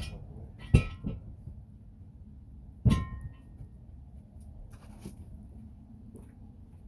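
Metal clanks during tyre-change work: two sharp knocks close together about a second in and a louder one near three seconds, each with a brief metallic ring.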